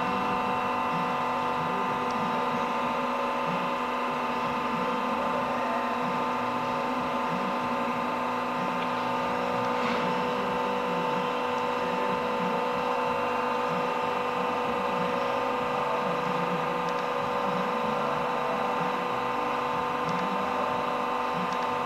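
Powered raise-lower drive of a Silverson high shear mixer stand running steadily as the mixer arm travels up the column: an even motor hum with several steady tones.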